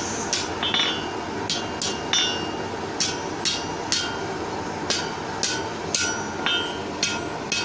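Blacksmith's hand hammer striking a hot half-inch square steel bar on the anvil, curling the tip into a scroll by hand. It is a steady run of blows, about two a second, each with a short metallic ring.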